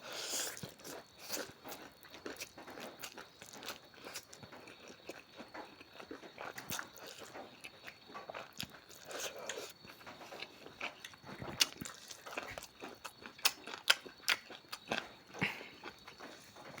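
Close-up chewing and crunching of food, with many quick sharp mouth clicks and smacks, a few louder ones near the end.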